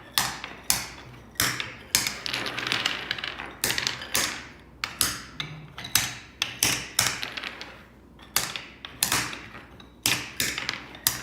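Wooden beads clacking and rattling: sharp clicks at about two a second, irregularly spaced, each followed by a short clatter.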